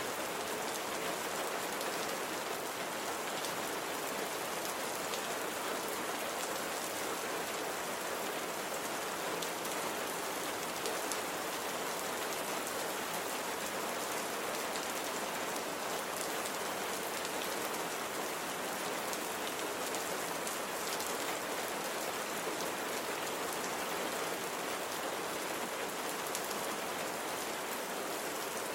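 Steady rain falling, a dense even patter of drops on a hard surface.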